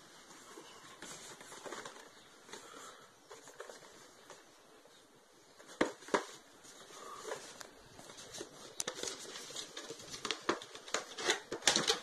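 Small cardboard retail box handled by hand on a worktop: rustling, scraping and light tapping of the cardboard, with two sharp knocks about six seconds in and busier, louder handling near the end.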